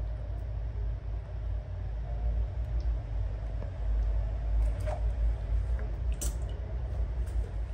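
Light splashes and drips as a baby monkey paws at the water in a plastic basin, with a few short taps, over a steady low rumble.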